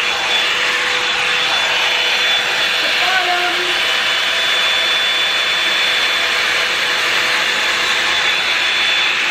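Revlon One-Step hot-air brush running steadily: a constant rush of air with a steady high motor whine.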